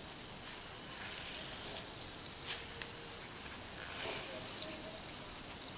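Faint dripping and trickling of water being squeezed by hand out of grated potato wrapped in a cotton cloth, falling into a bowl, with a few soft drips scattered through.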